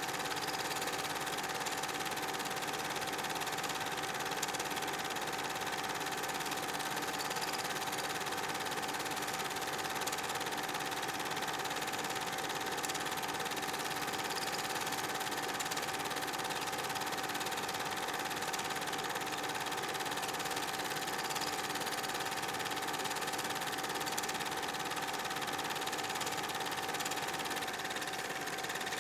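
Movie projector running: a steady mechanical whir with a constant tone, unchanged throughout.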